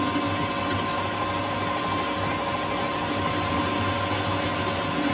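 Metal lathe running steadily, its chuck turning with a steady whine of several tones, while a tool takes a facing cut across the end of a tough steel bar.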